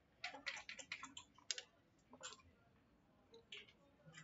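Backgammon checkers and dice clicking on a wooden board: a quick run of clicks in the first second and a half, then a few single clicks spread apart.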